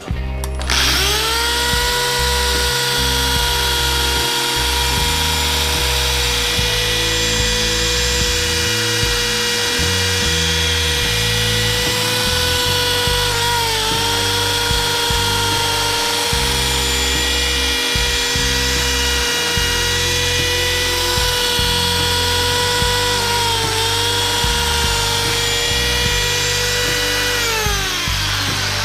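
Laguna Revo 18|36 wood lathe's motor whining as it spins up, running at a steady speed with two brief dips under load, then winding down near the end. Background music plays underneath.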